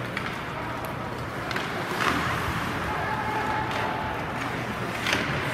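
Ice hockey play in a rink: skates scraping on the ice and a few sharp clacks of sticks and puck over a steady background noise.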